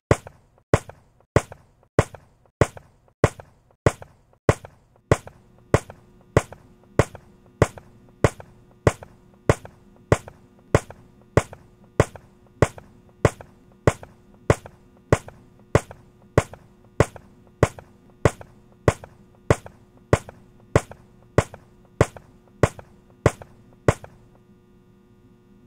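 Sharp, evenly spaced ticks, about three every two seconds, like a ticking soundtrack beat. A low steady hum joins about five seconds in. The ticks stop a second or two before the end, leaving only the hum.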